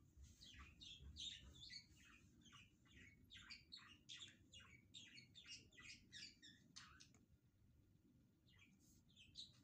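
Faint chirping of small birds: a rapid run of short, high chirps that thins out after about seven seconds.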